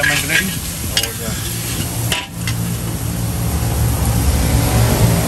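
Fried noodles sizzling in a steel wok as a metal spatula scrapes and tosses them for the first two seconds. Then a vehicle engine's low, steady hum takes over and grows slightly louder.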